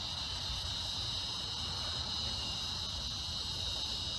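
Steady insect chorus, a continuous high-pitched buzz, over a low rumble.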